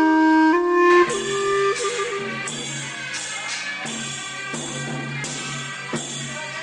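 Music: a melody of clear held notes, changing about a second in to a fuller band sound with a steady beat and a low bass line.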